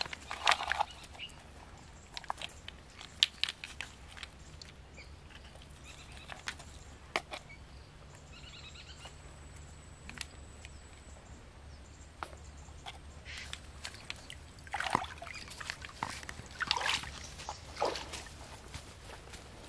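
Scattered clicks of clam shells knocking together and wet mud sloshing as the clams are scooped up by hand. Near the end, a run of rustling footsteps through dry leaves.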